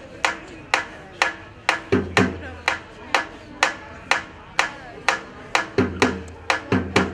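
Dhol beaten steadily with sticks, a sharp crack about twice a second, with deep bass strokes added under some beats about two seconds in and again near the end.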